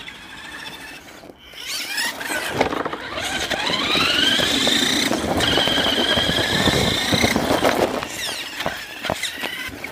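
RC Bug Crusher's electric drive motor and gears whining, rising in pitch as it speeds up, holding a high whine for a few seconds, then falling away about eight seconds in.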